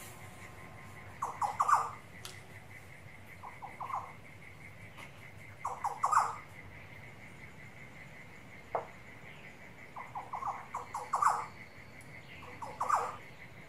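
Wild birds in Australian forest calling in about five short bursts of rapid chattering notes, over a steady high trill of crickets.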